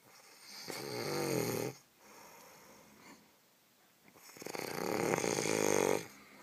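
A sleeping person snoring: two loud snores about three and a half seconds apart, the second longer, each with a droning tone that wavers in pitch, and softer breathing between them.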